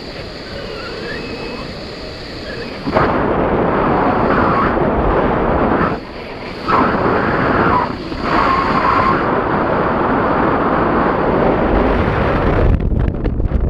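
Loud wind noise buffeting the microphone in gusts. It jumps up about three seconds in and drops out briefly twice around the middle.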